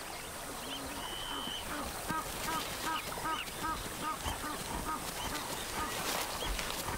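A waterbird calling a quick run of short, repeated calls, about four a second, from about two seconds in until near the end, after one held higher note about a second in, over a steady outdoor background.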